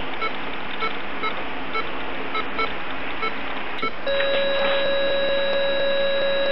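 Heart monitor beeping in quick, regular pulses, then about four seconds in changing to one continuous tone: the flatline of cardiac arrest.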